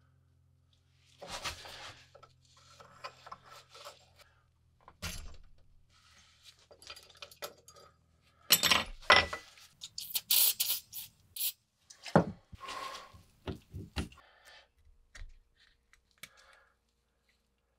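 Small rusty steel parts of a WW2 British spike bayonet being picked at with a metal pick, handled and set down on a wooden workbench: irregular metallic clicks, scrapes and clinks, with a run of louder clatters from about halfway through.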